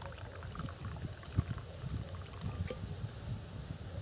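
Low rumble of wind on the microphone, with small clicks and one sharp knock about one and a half seconds in, as a steel thermos and its metal cup are handled.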